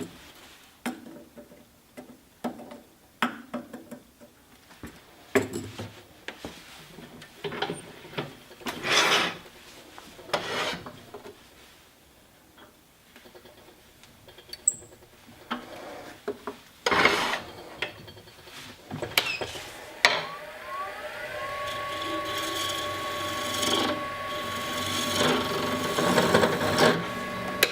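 Irregular scraping, rubbing and knocking of wooden pieces being handled and worked. About twenty seconds in, a small power-tool motor spins up with a rising whine and then runs steadily.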